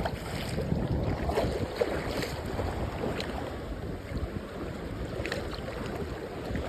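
Wind buffeting the microphone over the wash of small waves on a sandy beach, a steady rumbling noise.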